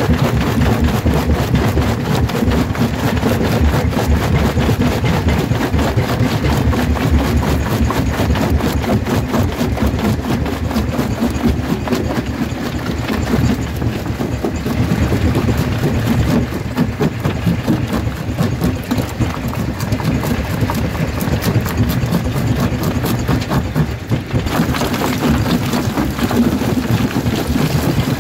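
Jaw crusher running, its corrugated jaw plates crushing stone with a steady low drone and rapid, regular knocking. About 24 seconds in, a hissing clatter joins it as a fresh load of rock falls into the crushing chamber.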